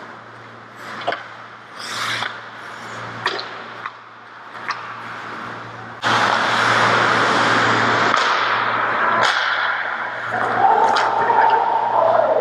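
Ice hockey play on the rink: sharp clicks of sticks and puck and scraping skates on the ice. About halfway through, a loud, steady rushing noise sets in suddenly and carries on to the end.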